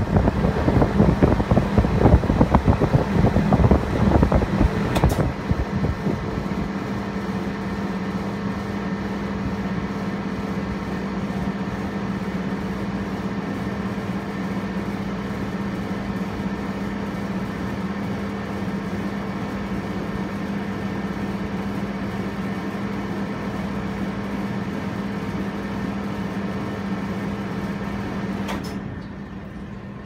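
Carrier outdoor air-conditioner condenser unit: for about five seconds its fan's air gusts onto the microphone, then a click and a steady low hum runs on. Just before the end a second click comes and the sound drops as the unit switches off and its fan spins down.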